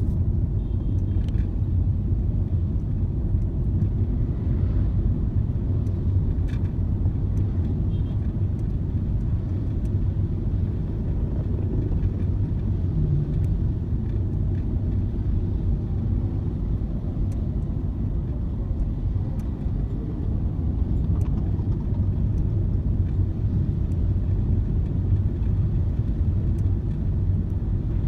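Steady low rumble of a car on the move, even throughout, with a few faint clicks.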